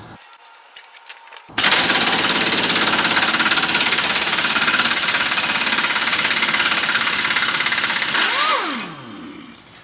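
A power tool's motor starts suddenly, runs loud and steady with a fast flutter for about seven seconds, then spins down with a falling whine.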